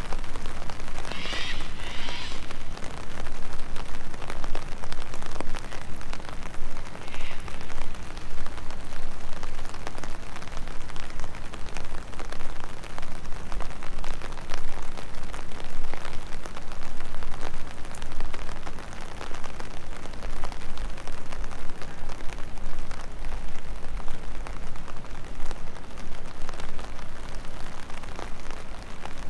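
Steady rain falling, with many sharp ticks of single drops striking close by.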